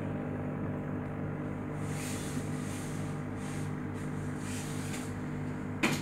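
Steady low hum of an aquarium's pump, with a faint hiss that comes and goes above it. A single sharp knock sounds just before the end.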